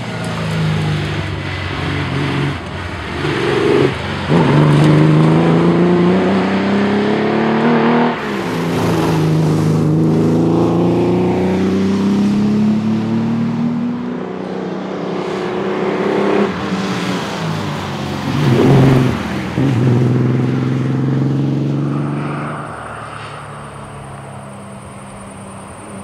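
Holden Torana GTR XU-1's straight-six engine accelerating hard, its note rising and then dropping at each gear change, over and over as the rally car passes at speed. It fades quieter in the last few seconds.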